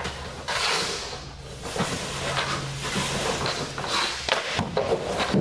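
Hockey goalie's skate blades scraping and carving on ice as he shuffles and drops across the crease, with scattered knocks of pads and stick.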